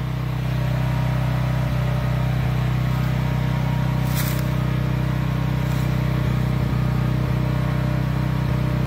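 Generator engine running at a steady speed, a constant hum.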